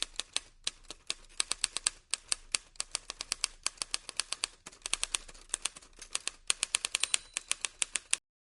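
Typewriter keys clacking in quick, uneven runs of sharp clicks, several a second with brief pauses, stopping abruptly near the end.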